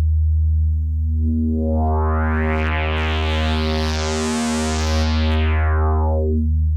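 Homebuilt analog synthesizer's three oscillators holding one low, steady note through its voltage-controlled filter. The tone brightens steadily as the filter opens until about four to five seconds in, then darkens again as it closes, and the note cuts off right at the end.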